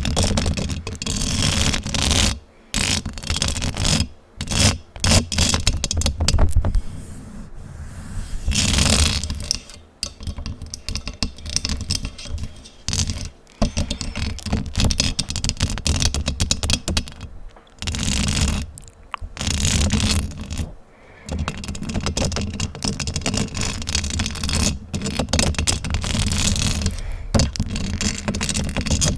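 Fingers scratching fast and hard directly on a microphone, a dense loud scraping broken by brief pauses every few seconds.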